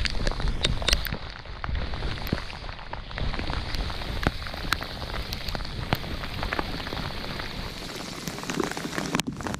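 Steady rain falling on the river's surface, a dense patter of drops with many sharp single ticks from drops landing close by.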